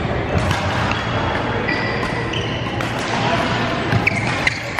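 Badminton rally in a large sports hall: sharp racket hits on the shuttlecock and short high squeaks of court shoes on the floor, over a steady din of voices and play from neighbouring courts.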